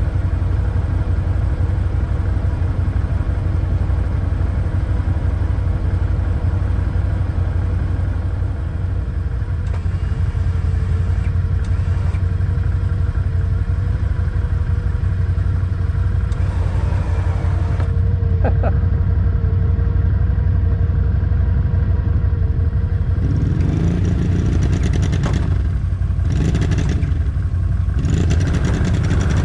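ATV engine running steadily, then revved up in three surges over the last six seconds.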